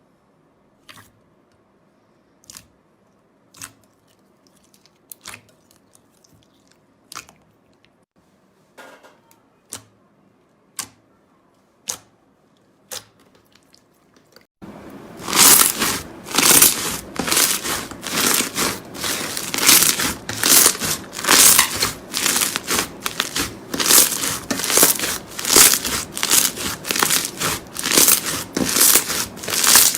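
Slime being handled: a few sharp sticky clicks and pops spaced about a second apart, then, from about halfway, a loud dense run of crackling and crunching as crunchy slime is squeezed and pressed.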